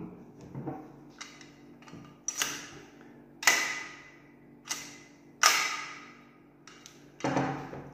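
The slide of an Umarex Glock 17 CO2 gas-blowback airsoft pistol being worked by hand. It gives a series of sharp clacks a second or so apart, each with a short ring, two of them louder than the rest.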